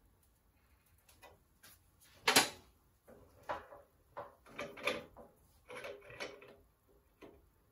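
Metal clunks and knocks as a steel tube is set in a drill-press-mounted tube notcher and the drill's feed handle is worked. One sharp clank comes about two seconds in, then a run of shorter knocks. The hole saw is not yet cutting.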